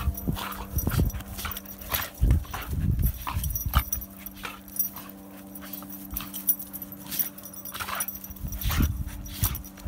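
Two dogs play-fighting, making short, irregular growls and yips, with scuffling and bumps as they grapple on dry grass.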